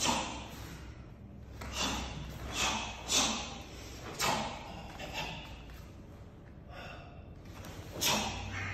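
Karate form performed solo: a series of short, sharp sounds, about six, each dying away in the hall, as the performer's uniform snaps and his breath is forced out with each strike and kick.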